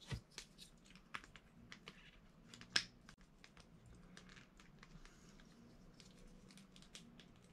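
Faint, scattered clicks and ticks of small plastic toy parts being handled and pushed together: the hands of a SuperThings exoskeleton figure being refitted. The sharpest click comes a little under three seconds in.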